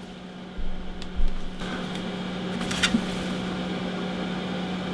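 A steady low hum, joined by a faint hiss about one and a half seconds in, with a few small clicks of handling.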